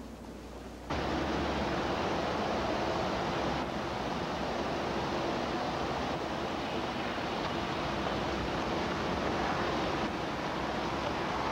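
City street ambience: a steady, even rush of traffic noise that cuts in abruptly about a second in.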